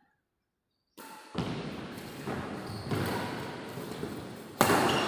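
Badminton rally in a large, echoing hall: rackets striking the shuttlecock in four sharp hits over about three seconds, each ringing out in the hall, the loudest near the end. The sound cuts in after about a second of silence.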